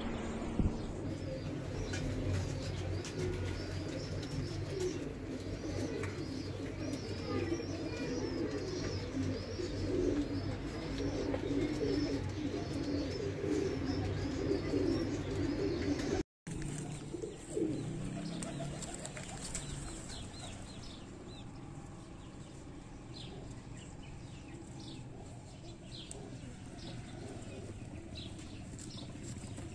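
Domestic pigeons cooing, a dense low murmur of several birds, with small birds chirping above it. It cuts off about halfway through. After that the sound is quieter, with scattered short high chirps.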